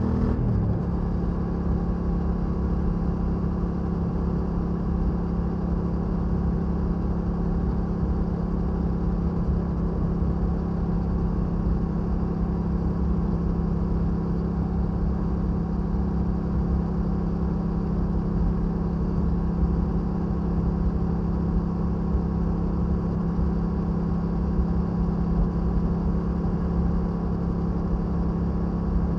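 Yamaha Ténéré 700's parallel-twin engine pulling steadily at cruising speed, about 95 km/h. Its note eases slightly in the first second, then holds even.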